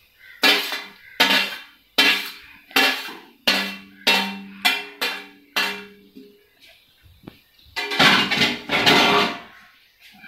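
Steel spoon knocking on a large stainless steel plate as chopped coriander leaves are pushed off it into the pan: a series of sharp clanks, about one a second at first and then quicker, with the plate left ringing after several of them, and a longer clatter near the end.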